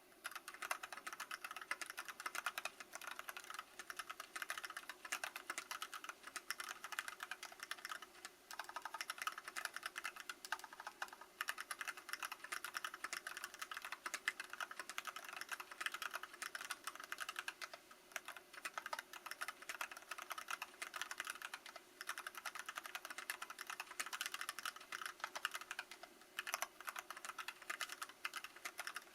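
Steady fast typing on an Archon FX mechanical keyboard with Kailh Box Black linear switches on an aluminium plate, in stock, unmodified form. It is a dense stream of key clacks, with short lulls about eight seconds in and again past twenty seconds.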